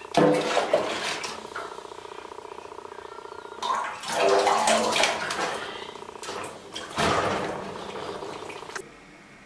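A pet animal crying out in a few loud bouts, about the start, four seconds in and seven seconds in, over running bathwater, the distress of being bathed. It quietens near the end.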